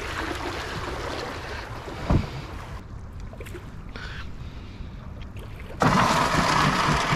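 Canoe drifting on a river: water running along the hull, with a single thump about two seconds in. A louder rushing noise starts near the end.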